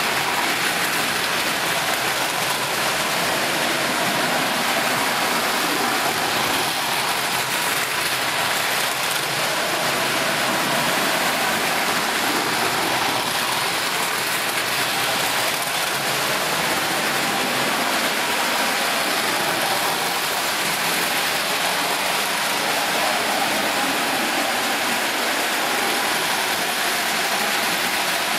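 Several model electric trains running together on a layout: a steady, even rushing whir of metal wheels on metal track and their motors.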